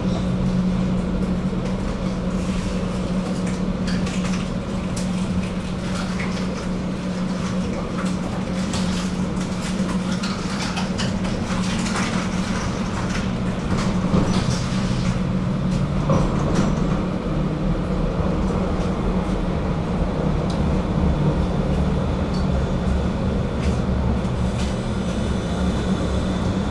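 Tram running along its track: a steady low hum with repeated knocks and rattles from the wheels on the rails. A high steady whine comes in near the end.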